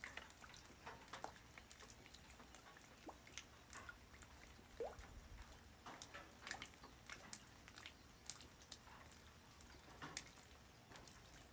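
Light rain falling on the ground: faint, irregular drops pattering, several distinct drop clicks a second over a soft hiss.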